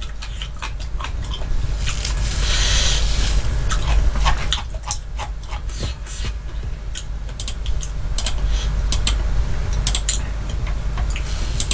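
Close-miked chewing of crisp sweet persimmon: scattered wet crunches and mouth clicks, with a denser crunch about two and a half seconds in, over a steady low hum.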